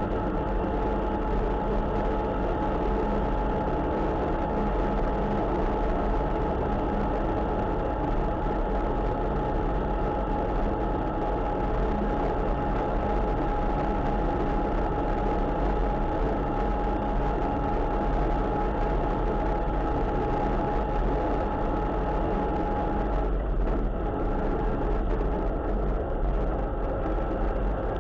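A vehicle's engine running and tyres on a wet road while driving at a steady speed, with a steady whine that stops about three-quarters of the way through as the sound shifts.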